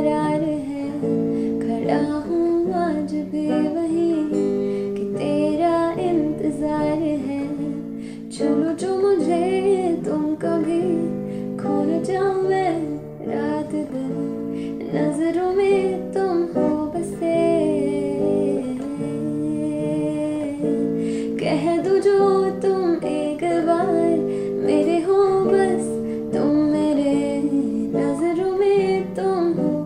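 A woman singing a Hindi melody while strumming an electric guitar, the voice leading over steady guitar chords.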